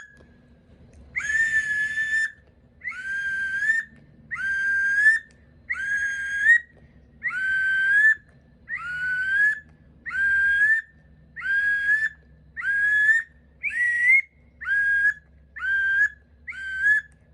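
Duck Commander Woody wood duck call blown with a finger closing its hole, giving wood duck whistles: a series of about fourteen squealing notes, each dipping and then rising at its end. The notes get shorter and quicker toward the end.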